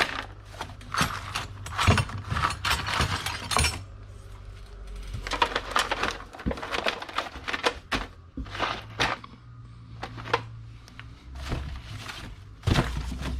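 Small metal tools and hardware clinking and rattling as they are rummaged through and sorted by hand, in irregular clusters of clicks.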